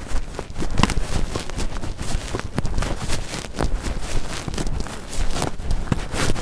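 Footsteps of the camera wearer walking on grass, heard close up as irregular soft knocks with rustling of clothing and gear, over a steady low rumble on the microphone.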